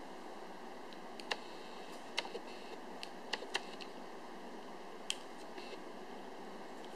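Sharp hard-plastic clicks and taps from a small PVC figure and its round base being handled and set down, about five distinct clicks with a few softer ticks between, over a steady faint hiss.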